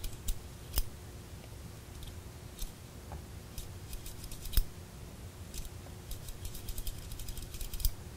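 Metal tweezers clicking and scraping against a small metal camera module, in scattered light clicks with one sharper tap about four and a half seconds in and a quick run of clicks near the end.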